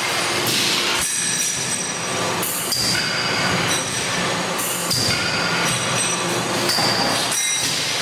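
Automatic cartridge assembly machine running: a steady mechanical clatter of metal parts, with high metallic squealing tones returning every two seconds or so.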